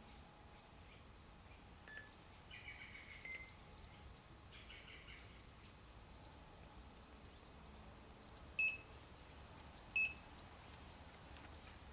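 Electronic carp bite alarm giving two short single beeps about a second and a half apart near the end, as the indicator on the line twitches: a fish picking up the bait, with the alarm set sensitive enough to sound at every small movement. Fainter bird chirps come in the first half.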